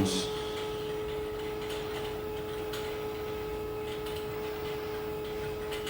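Steady hum of mechanical-room equipment serving boiler-fed water heaters: a constant drone with a few steady tones, and a few faint ticks.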